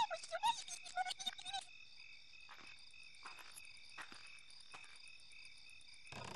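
Night ambience of crickets chirping steadily, with frogs croaking in quick pulses for the first second and a half, then only a few scattered croaks. A short burst of noise comes near the end.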